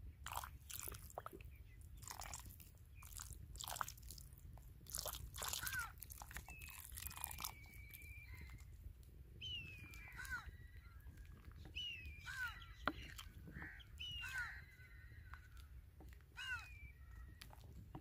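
Wooden ladle stirring in a clay pot of soup, with faint scattered clicks and scrapes in the first half. From about halfway a bird calls repeatedly, giving short falling chirps every second or two.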